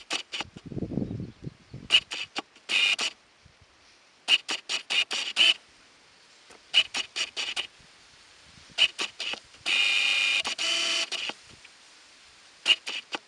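A songbird in a reed bed singing harsh, chattering phrases: short runs of rapidly repeated sharp notes separated by pauses, with one longer grating run near the end. A brief low rumble comes about a second in.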